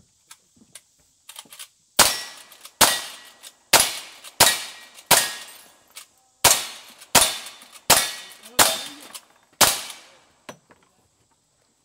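Ten revolver shots in two strings of five, about one shot every 0.7 s, with a pause of about a second and a half between the strings. Each shot has a short echoing tail.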